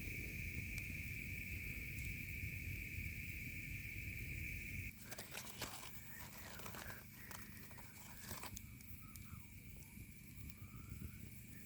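A steady high-pitched drone over a low rumble, cut off abruptly about five seconds in. Then come irregular sharp crackles and pops from a campfire for a few seconds, thinning to scattered ticks with a few faint rising chirps.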